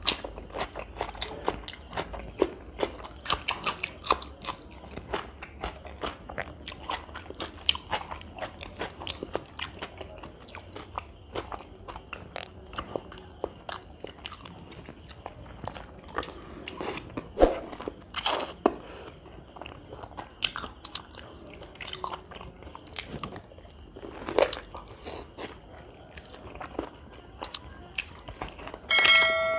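Close-miked eating: chewing and biting on mouthfuls of rice and curry eaten by hand, an irregular run of wet clicks from the mouth. Near the end a short ringing chime sounds.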